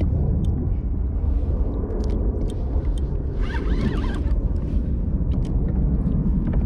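Steady low rumble of wind and water around a fishing kayak at sea, with faint ticks and a brief wavering high-pitched sound about three and a half seconds in.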